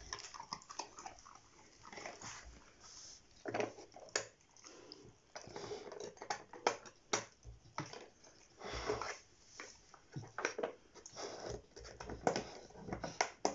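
Bernese mountain dog nosing and mouthing at a plastic treat-puzzle board: irregular small clicks and knocks of the plastic pieces, with sniffing and chewing on the treats.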